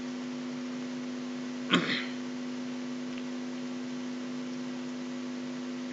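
Steady hum in several tones. About two seconds in, one brief throat sound from the speaker breaks it.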